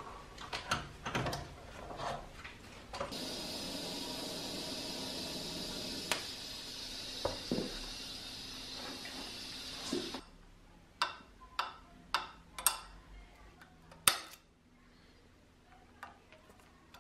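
TIG welding arc running with a steady hiss for about seven seconds, starting about three seconds in. Before and after it, scattered light metallic clicks and taps.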